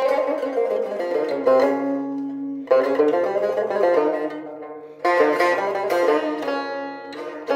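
Tar, a long-necked plucked lute, played solo: melodic phrases of plucked, ringing notes over a low sustained note, with strong fresh strokes about three and five seconds in.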